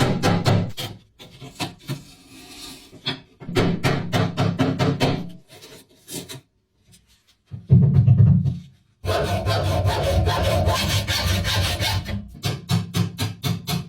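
Quick back-and-forth scraping or filing strokes, about six a second, in runs of a second or two with pauses. Near the middle there is a short louder thump, followed by a few seconds of continuous rubbing.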